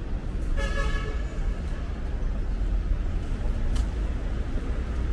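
Steady low rumble of street traffic, with a short horn toot lasting about half a second, just over half a second in.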